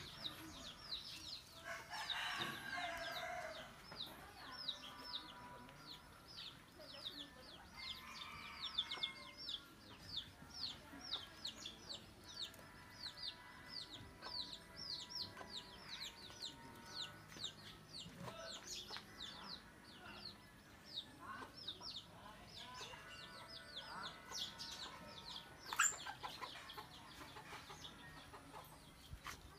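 Backyard chickens clucking and a rooster crowing, over a steady run of quick, high chirps several a second. A single sharp click sounds near the end.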